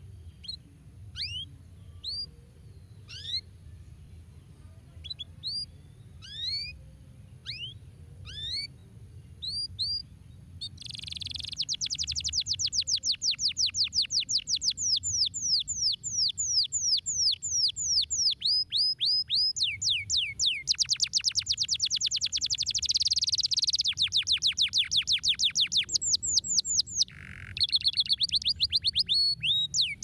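Domestic canary singing: for about ten seconds scattered single chirps that sweep in pitch, then a much louder, rapid trill of fast repeated notes that quickens in places, broken briefly by a lower note near the end.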